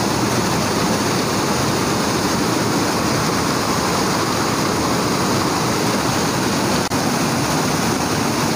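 Small waterfall pouring over a rock face into a churning pool: a loud, steady rush of falling water, with a momentary break about seven seconds in.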